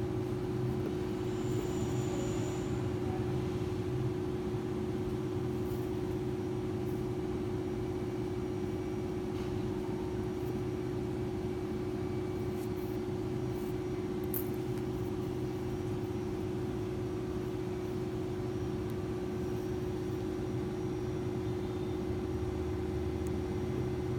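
Steady machine hum, one held tone over a low rumbling drone, with a few faint high ticks now and then.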